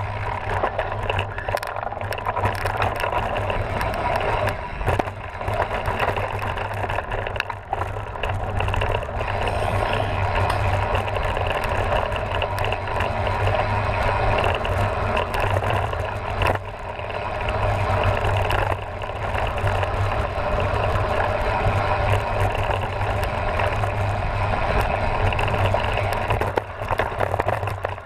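Mountain bike riding over a dirt and gravel trail: steady tyre noise on loose ground with continual rattling and clattering from the bike.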